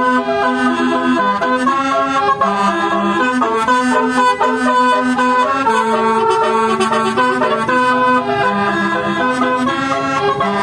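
Indonesian bus's Telolet Basuri multi-tone horn playing a tune: a fast run of held horn notes, often two or three pitches sounding together.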